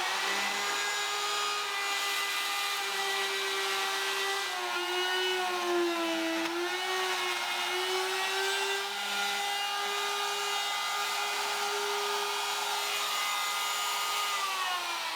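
A router with a straight bit, guided by a Soss router template, cutting the deep hinge mortises in a wooden door jamb. The motor runs at a steady high whine, its pitch dips briefly about five to six seconds in as the bit takes the load in the wood, and it winds down near the end as the router is switched off.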